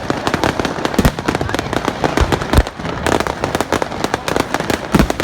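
Fireworks going off: a dense, continuous crackle of rapid pops, with several louder bangs about a second in, twice past two seconds and near the end.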